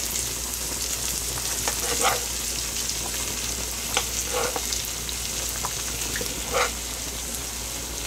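Ground beef and Italian sausage sizzling in a frying pan tipped to drain off the grease, with a steady hiss and a few short scrapes of a utensil against the pan.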